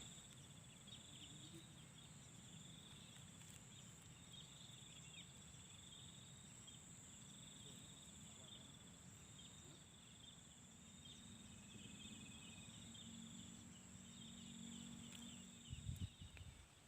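Faint insects trilling steadily in a pulsing high note, over a low background hum.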